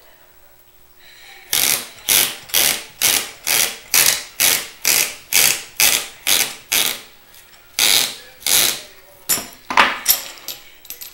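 Masking tape being pulled off the roll in quick repeated strokes as it is wound onto a fishing rod blank to build reel-seat arbors: a rasping pull about twice a second for several seconds, then two more pulls after a short pause and a few light clicks near the end.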